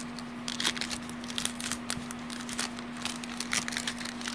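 Plastic-foil wrapper of a Topps baseball card pack crinkling and crackling in irregular bursts as it is handled, over a steady low hum.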